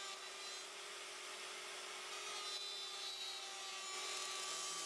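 Router with a straight cutter running steadily and cutting through timber held in a dovetail jig, making the pins of a through dovetail in light left-to-right passes: a steady motor tone under the hiss of cutting wood.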